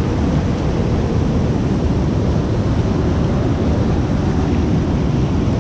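Cold glacial runoff stream rushing past beside the hot spring pools: a loud, steady rush of water.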